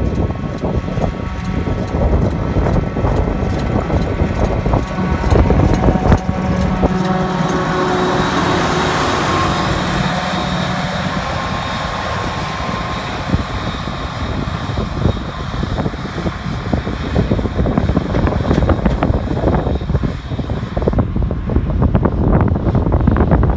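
Claas Jaguar forage harvester and tractors running steadily while chopping grass, a continuous machine drone with a high whine, with wind buffeting the microphone.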